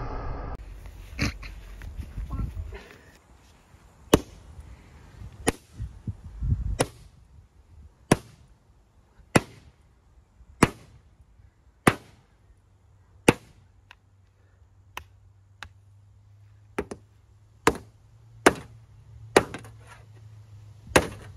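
An axe repeatedly striking a used metal diesel fuel filter canister lying on a steel sheet, in an attempt to split the canister open. The sharp metallic blows come about once every second and a bit, and quicken near the end.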